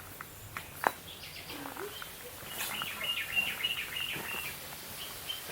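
Small birds chirping, with a quick run of high chirps in the middle. A single sharp click about a second in.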